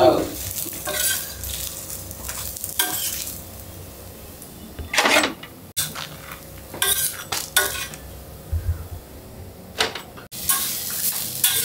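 Metal spatula scraping and clinking on a hot dosa griddle while masala dosas are spread and folded, in short bursts every second or two over a faint sizzle of ghee. Near the end, steel plates clink as a folded dosa is set down.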